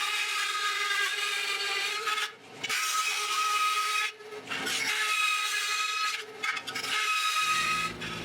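A power cutting tool working through sheet steel in four runs of a second or two each, with a steady whine over a rasping noise, as repair patches are cut from a spare quarter valance.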